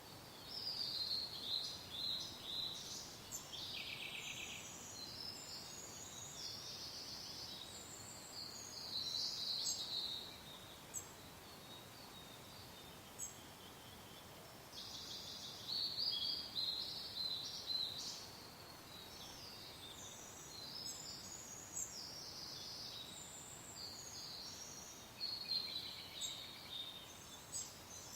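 Songbirds singing in bouts of varied high chirps and trills, with short pauses between, over a soft, steady wind hiss.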